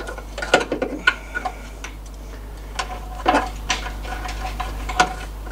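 MGB gearbox dipstick being pushed back into its filler tube: a series of light metallic clicks and taps. Several come quickly about half a second to a second and a half in, and a few more follow at about three and a third, three and three-quarter and five seconds.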